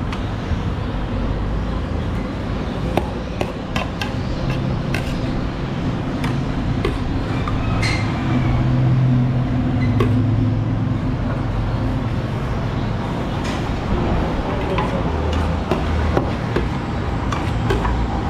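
Slotted steel ladle clinking against a large steel serving tray and a small bowl as broth is ladled out, in scattered short clinks over a steady low din.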